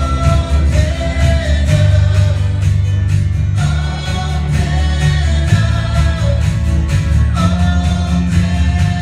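A live worship band playing and singing a worship song through the hall's PA: electric guitar, strong bass and singing voices carrying the melody over a steady beat.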